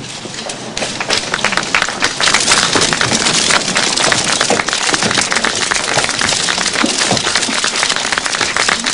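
A crowd applauding, a dense patter of many hands clapping that swells about a second in and keeps going.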